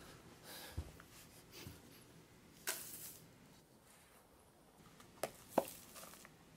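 Faint rustling of a soil mix being mixed in a small plastic Tupperware container, with a louder swish a few seconds in. Near the end come two sharp clicks.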